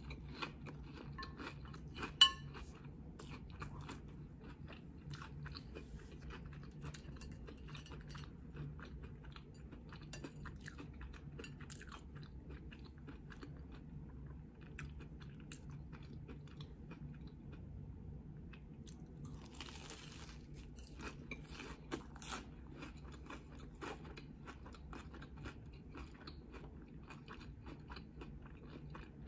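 Close-miked chewing of a crunchy fried corn dog with a panko crust: a run of small crisp crunches and crackles over a faint low hum, with one much louder sharp click about two seconds in.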